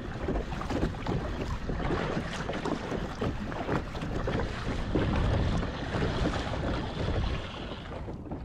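Kayak paddle strokes splashing and dripping in the water, with wind buffeting the microphone.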